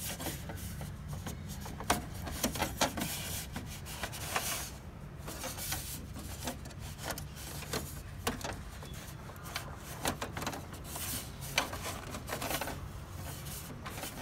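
A cloth rubbing and scrubbing against the plastic and metal parts inside an open laser printer's paper path around the pickup roller. Scattered light clicks and knocks come from parts being bumped, over a steady low hum.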